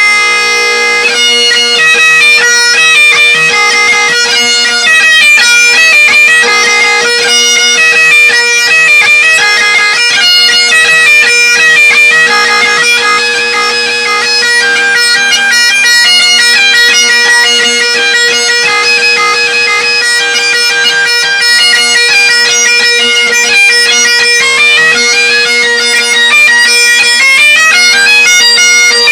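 Great Highland bagpipes playing loudly: steady drones held under a fast chanter melody with quick note changes.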